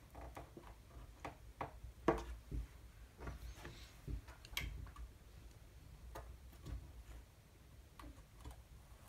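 Irregular light clicks and taps of fingers handling pins, a freshly glued wooden moulding and a small plastic spring clamp on a wooden ship model, the sharpest tap about two seconds in.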